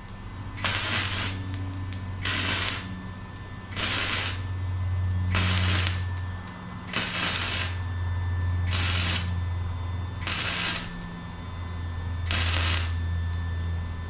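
Arc welder laying a run of short tack and stitch welds on steel tubing: eight crackling bursts of about half a second each, one every second or two, over a steady low hum.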